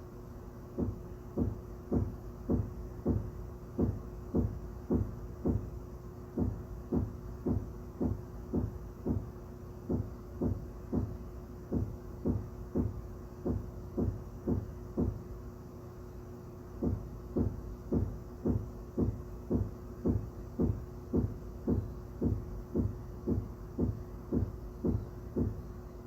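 Dull knocking through the ceiling, evenly repeated about twice a second, with a short break about two-thirds of the way through before it resumes. A faint steady hum lies underneath.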